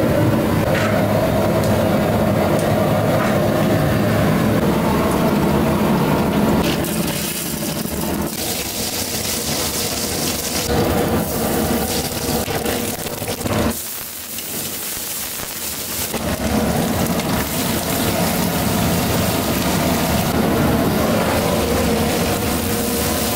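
Gas stove burner running with a steady rush under a large aluminium pot, and hot oil hissing and sizzling as whole black pepper and then sliced onions and curry leaves go into it. There is a brief lull about 14 seconds in.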